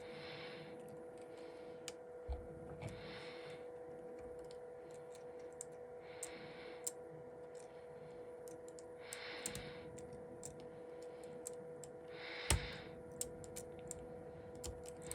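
Small scattered clicks and taps as flex-cable connectors and tools are worked onto an iPhone XS logic board, with one louder click about twelve seconds in. Under them runs a steady electrical hum, and a soft hiss comes about every three seconds.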